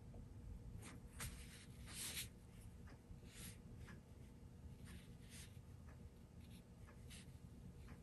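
Faint scratching of a Chinese ink brush dragged across xuan paper in a series of short strokes, the loudest about two seconds in, over a steady low room hum.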